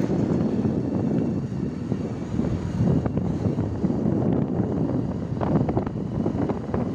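Wind rushing over the microphone of a camera on a moving motorcycle, with the bike's engine and road noise underneath as a steady low rumble.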